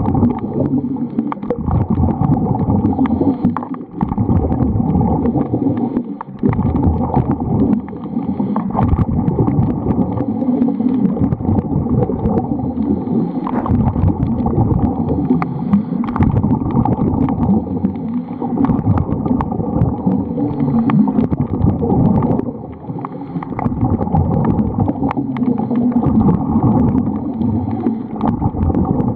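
Muffled underwater rushing and gurgling picked up by a camera in its waterproof housing, dense and low, dipping briefly a few times.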